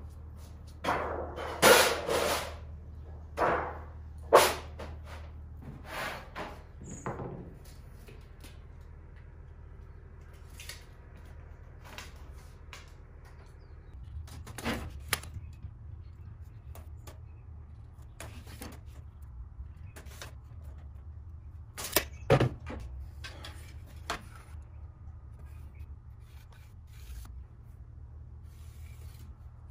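Thin sheet metal rattling and clanging as large sheets are handled and set down on a workbench, loudest in the first few seconds. After that come scattered light clicks, taps and knocks of a tape measure, ruler and marker as a sheet is measured and marked.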